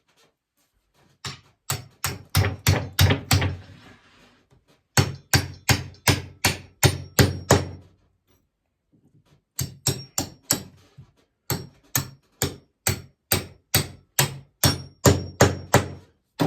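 Hammer blows driving a 5/16-inch bolt through drilled holes in cedar picket boards: three runs of steady, sharp strikes, about two or three a second, with a slight metallic ring on each.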